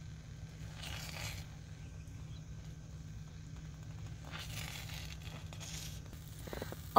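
Wooden spatula scraping and stirring scrambled eggs in a frying pan, a few soft strokes against the pan with faint sizzling of the cooking egg, over a steady low hum.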